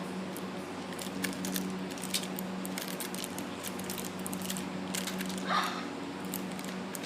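Scattered light clicks and taps over a steady low hum, with one short soft sound about five and a half seconds in.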